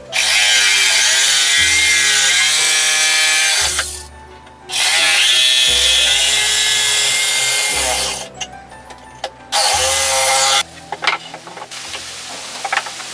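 A power saw cutting wood, three cuts in a row: two of a few seconds each, then a short one. The saw's pitch dips and recovers under load. After the cuts come a few light taps of wood being handled.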